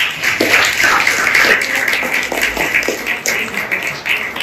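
Audience applauding, with many hands clapping at once.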